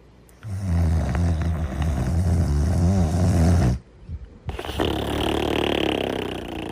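Snoring: a long, low rumbling snore on the in-breath lasting about three seconds, then after a short pause a breathier, higher-pitched out-breath.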